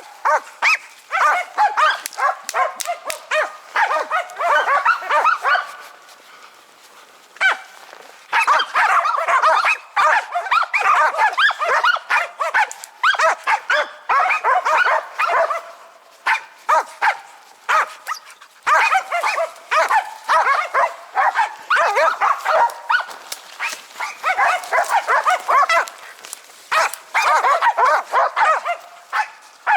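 Pack of Karelian-Finnish laikas barking rapidly and without let-up, several dogs overlapping, baying at a marten treed in a pine. The barking drops off briefly about six seconds in, then resumes.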